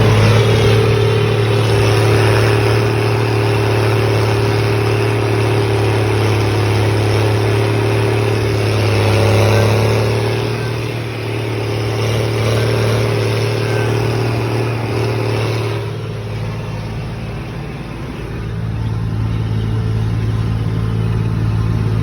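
The 1780's engine running with a deep, steady rumble. It eases off slightly about halfway through and again for a couple of seconds near the end, then picks back up.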